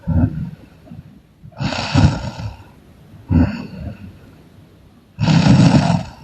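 A sleeping woman snoring loudly in rasping, snorting breaths: a short snore at the start, longer ones about one and a half and five seconds in, and a shorter one between them, with quiet breathing in the gaps.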